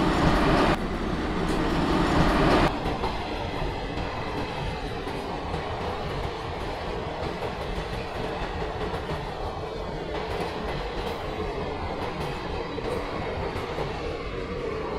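An electric locomotive passes close by, loudest for the first two or three seconds. A rake of passenger coaches then rolls past steadily, with the clickety-clack of wheels over the rail joints.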